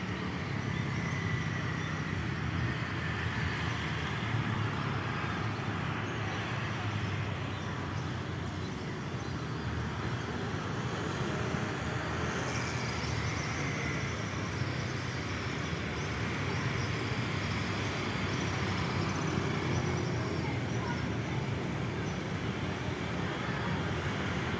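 Steady hum of road traffic, with no single vehicle standing out.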